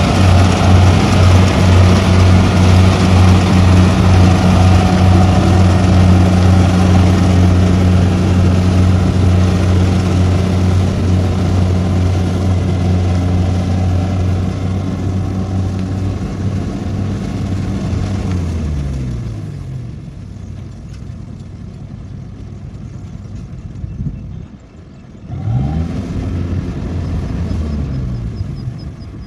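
Engine of a tracked rice combine harvester running steadily under working load while it cuts. About two-thirds of the way through its pitch falls and it quietens; after a brief dip it revs up again and eases back down near the end.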